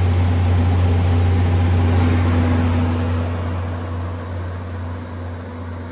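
John Deere 6068HF485 six-cylinder diesel in a 200 kW generator set running steadily at constant governed speed, with a deep even hum. It gets somewhat quieter from about three seconds in.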